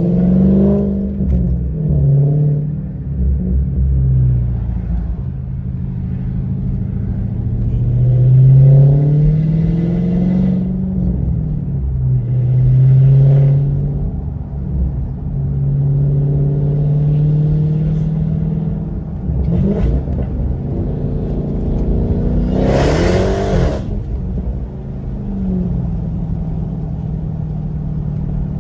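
Supercharged 6.2-litre Hemi V8 of a Dodge Hellcat with gutted catalytic converters, being driven hard. The engine note climbs and drops back several times. A loud rushing burst comes about 23 seconds in.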